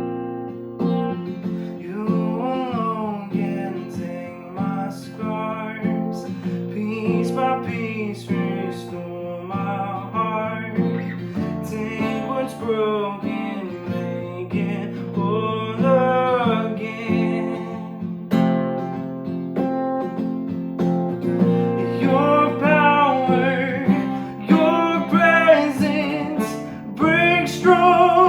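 Worship music: strummed acoustic guitar with a sung melody over sustained chords.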